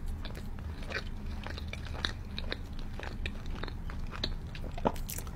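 Close-miked biting and chewing of a cheese pizza slice: a string of small crunches and crackles, with one louder crunch near the end.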